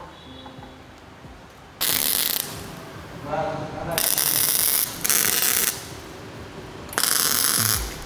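A woodworking tool run in four short, loud bursts with a rattling, ratchet-like sound, each under a second long, the first about two seconds in.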